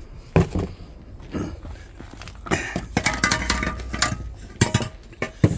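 Metal parts and tools being handled: a sharp knock early on, a cluster of ringing metallic clinks in the middle, and a few more sharp knocks near the end.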